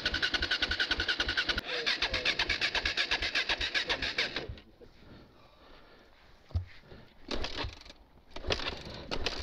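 Enduro dirt bike's single-cylinder four-stroke engine running in even pulses, then cutting out about four and a half seconds in: it has stalled. Short bursts of engine noise follow near the end as the rider tries to restart it.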